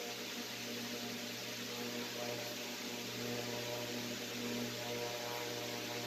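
A steady electrical hum, several low tones held level, with an even hiss over it. The threading itself is not heard.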